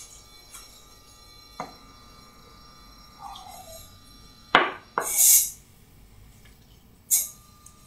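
Metal spoon stirring thick brownie batter in a glass bowl: a few sharp clinks of spoon on glass, the loudest about four and a half seconds in, and short scraping swishes, one just after it and another near the end.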